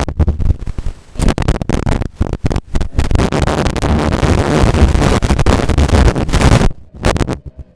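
Harsh, distorted crackling noise that keeps cutting in and out with sudden dropouts, the sign of a microphone running on a dying battery.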